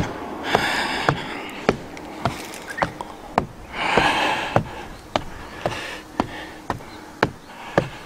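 Footsteps climbing wooden stairs, a sharp knock about twice a second, with two short breathy hisses in between.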